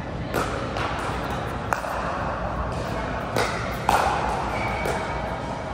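Pickleball paddles striking the hard plastic ball during a rally: about five sharp pops an uneven second or so apart, with the steady din of a large indoor hall behind them.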